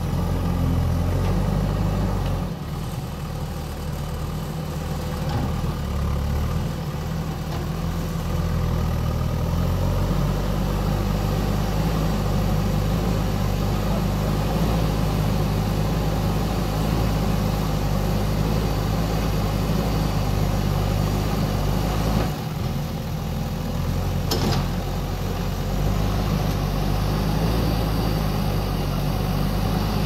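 JCB backhoe loader's diesel engine running continuously as the loader works mud with its front bucket, its engine note shifting several times as the load and throttle change.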